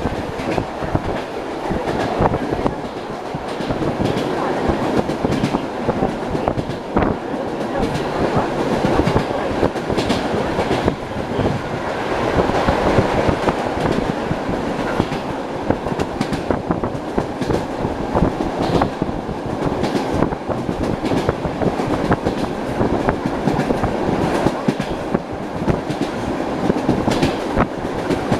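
Wheels of an ED9M electric multiple unit clattering over rail joints, heard from inside the carriage. Sharp knocks come at irregular spacing over a steady running rumble.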